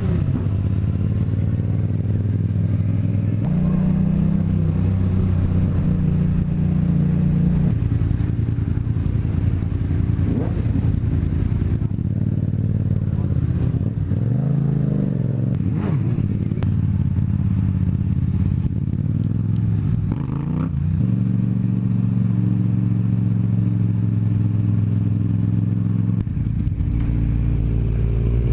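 Motorcycle engine running under way, holding a steady note with a few shifts in pitch as the throttle or gear changes, and one dip and rise in revs about halfway through, over wind noise.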